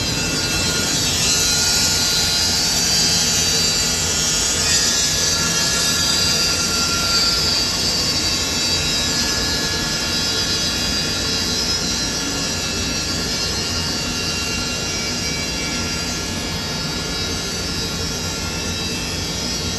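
Sawmill saw cutting wood into thin boards: a steady running whine with many high tones over a noisy base, a little louder in the first several seconds.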